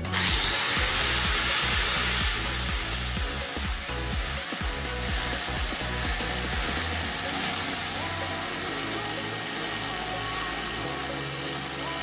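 A small handheld cutting machine's spinning blade cutting into material, a loud steady grinding hiss that starts suddenly and eases slightly after about two seconds.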